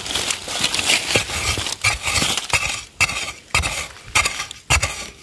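Metal blade of a long-handled digging spade chopping and scraping into dry, crumbly soil, in repeated strokes about one to two a second.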